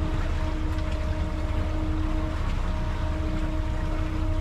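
Sailboat motor-sailing: the inboard engine drones steadily with a low rumble and a steady hum, over the wash of water and wind.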